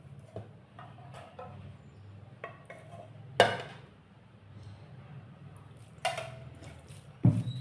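Dishes and cutlery clinking and knocking against a plate during a meal: scattered small clicks, with three louder sharp knocks, the loudest about a third of the way in and near the end. A steady low hum runs underneath.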